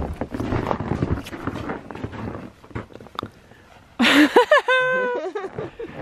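Footsteps crunching in snow, then after a short quiet spell, about four seconds in, a dog gives a loud, high yelping cry that holds its pitch for under a second.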